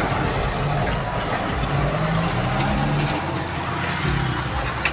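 Street traffic: a pickup truck's engine running as it drives past, with motorcycle engines around it. A sharp click right at the end.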